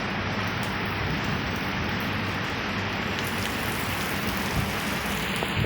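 Heavy rain pouring down steadily during a severe thunderstorm.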